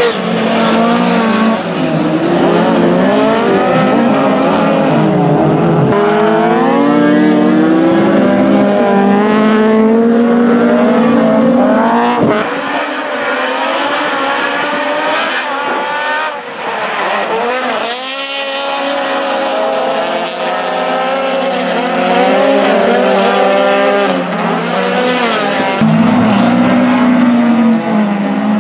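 Rallycross race car engines at full throttle, the pitch climbing and dropping again and again as the drivers change gear, with some tyre squeal.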